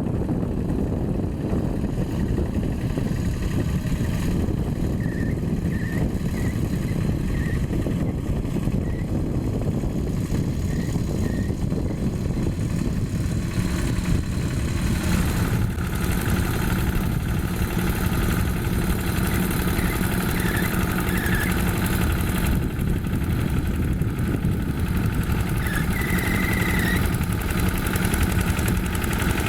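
Yanmar single-cylinder diesel engine of a Quick G1000 hand tractor running steadily while it pulls a plough through topsoil. Its note changes about halfway through.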